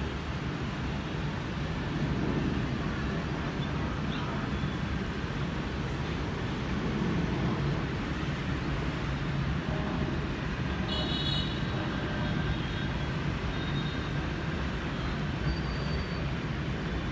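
Low, steady jet rumble of a Boeing 787-10 climbing out after takeoff, heard from afar, mixed with city traffic noise.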